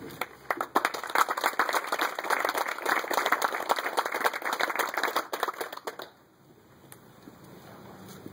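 Audience applauding, many overlapping claps for about six seconds, then stopping.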